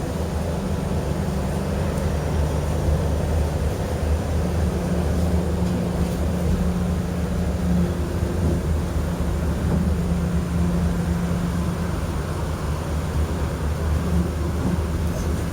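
City bus in motion: a steady low hum with a constant rushing noise underneath.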